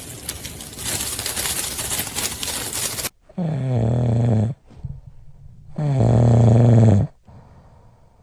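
Two long, low snores about two and a half seconds apart, each starting with a slight downward slide in pitch, following about three seconds of rough noisy hiss.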